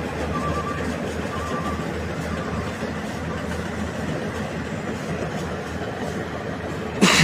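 Rice combine harvester running steadily, its engine and machinery making a continuous mechanical noise. Faint short beeps come about once a second in the first few seconds, and a brief loud knock sounds near the end.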